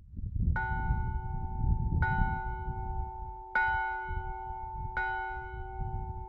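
Large bronze church bell, St. Margaret's bell (906 mm, about 394 kg, cast by Alojz Kurbel of Trnava in 1923), tolled by hand with its clapper: four strikes about a second and a half apart. Each strike rings on in a steady chord of tones that overlaps the next, with a low rumble underneath.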